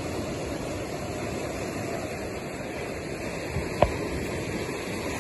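Ocean surf washing in on a rocky cobble shore, a steady rush, with one sharp click a little under four seconds in.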